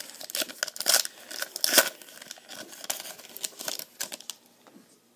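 Foil wrapper of a 2017 Panini Select football card pack crinkling as it is torn open by hand and the stack of cards slid out, a quick run of sharp crackles and clicks that dies away after about four seconds.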